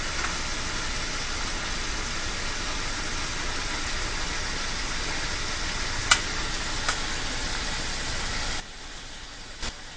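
Piece of fried chicken sizzling in a pan of hot, simmering sauce: a loud, steady hiss with a couple of sharp pops about six and seven seconds in, dropping off abruptly near the end.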